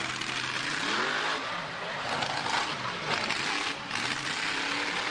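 Monster truck's big engine revving up and down again and again as the truck drives across grass, its pitch rising and falling several times.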